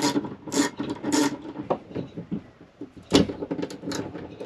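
Socket ratchet wrench clicking in repeated strokes as it loosens a battery cable nut on an inverter terminal, with a louder metal knock about three seconds in.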